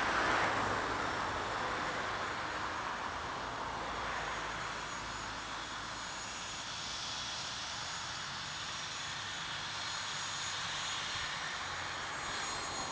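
Boeing B-17 Flying Fortress's four Wright Cyclone radial engines at takeoff power as it climbs away, loudest just after the start, then a steady drone.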